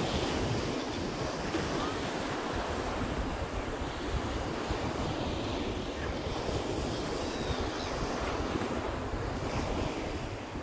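Small ocean surf breaking and washing up a sand beach, a steady wash of water, with wind buffeting the microphone in a low rumble.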